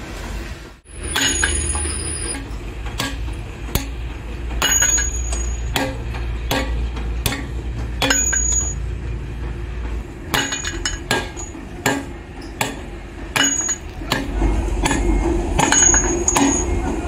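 Hand hammer striking the steel wheel studs and hub of a truck's rear wheel: many sharp metallic blows, each with a short high ring. The blows are irregular at first and come quicker in the second half.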